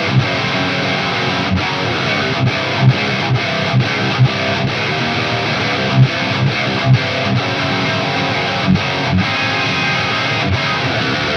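Randall Diavlo RD100 tube amp head on its high-gain blue channel with the built-in boost on, playing heavy palm-muted metal rhythm riffs from an electric guitar with Bare Knuckle Aftermath pickups through a 2x12 cabinet with V30 speakers. The guitar is heard alone, with no backing track. The riffs are chugs with sharp accented hits and brief stops, and the tone is dry, tight and aggressive, a little on the dark side.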